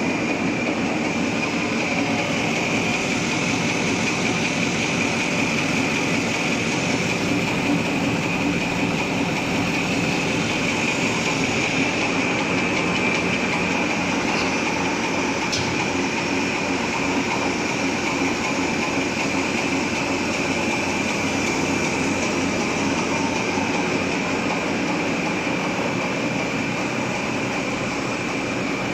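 Napkin paper folding machine running steadily: a continuous, even mechanical clatter with a steady high tone over it.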